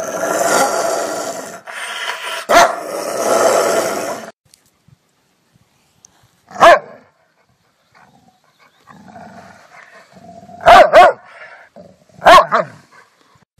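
Rottweiler growling and snarling continuously for about four seconds, with one sharp bark in the middle. Then, after a pause, come single barks, a brief low growl, a quick double bark and one last bark near the end.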